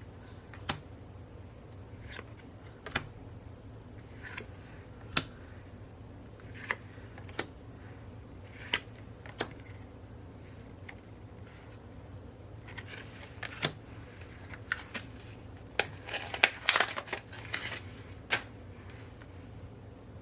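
Photocards being handled and flipped through: scattered light clicks and taps of card against card, with a short stretch of paper or plastic rustling about three-quarters of the way in.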